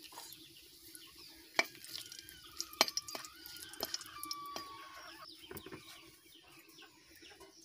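Metal spatula clinking a few times against a metal kadai while whole spices (bay leaves and cinnamon) are stirred in hot oil, with chickens clucking in the background.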